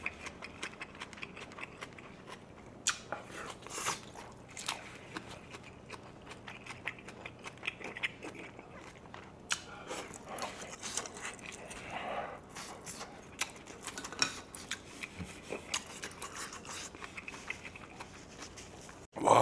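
Close-miked chewing and crunching of minari (water parsley) stalks with grilled pork belly, a run of scattered small crunches and clicks. A brief louder noise comes right at the end.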